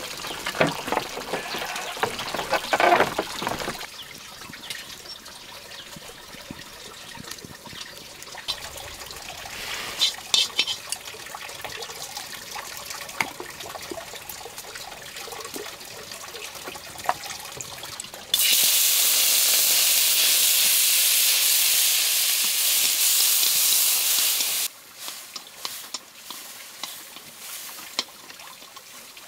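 Water trickling, with scattered small knocks and clicks. In the second half a loud, steady hiss starts suddenly, runs for about six seconds and cuts off.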